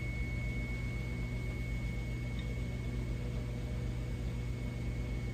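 Steady hum of a running electric motor, such as a fan, with a thin high whine held over a soft hiss.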